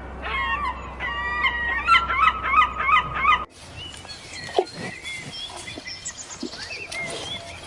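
Farm waterfowl honking: loud, repeated calls that fall in pitch, several overlapping. About three and a half seconds in the sound cuts off abruptly, giving way to a quieter stretch of short, high bird chirps.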